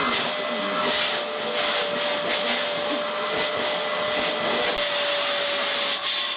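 Vacuum cleaner running steadily: a constant motor tone over a rushing air noise.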